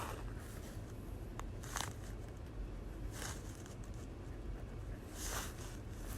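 Drawing strokes: a drawing tool scratching across the drawing surface in about four short strokes a second or two apart, over a low steady hum.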